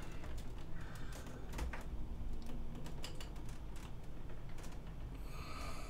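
Scattered clicks and knocks of a heavy 14-inch Celestron telescope tube being gripped and lifted, over a steady low hum.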